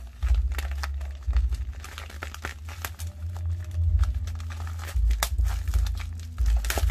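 Plastic courier mailer pouch being torn open and crinkled by hand: many sharp crackles of the plastic over dull, on-and-off low rumbling bumps from handling.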